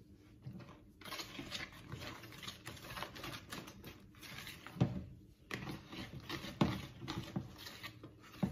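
Balloon whisk beating thick cake batter in a stainless steel mixing bowl: a quick, irregular patter of strokes, with a few louder knocks in the second half.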